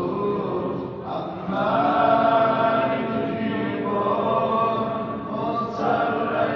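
Men's voices chanting a Muharram mourning lament (noha), with long, wavering held notes.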